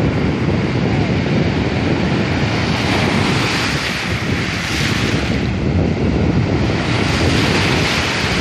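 Shallow sea surf washing and foaming around the waders, with wind buffeting the microphone; the wash swells about halfway through and again near the end.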